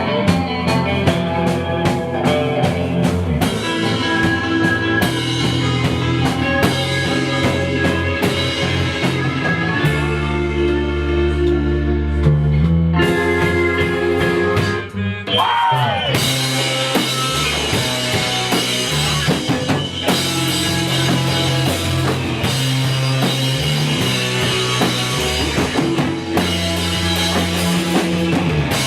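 Rock band playing an instrumental passage on drum kit and guitars. About ten seconds in, the drums drop out for a few seconds, leaving held chords. A sliding note follows, and the full band with drums comes back in.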